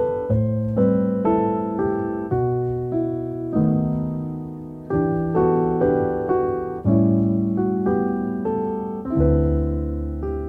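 Background piano music: single notes and chords struck at an unhurried pace, each one ringing out and fading.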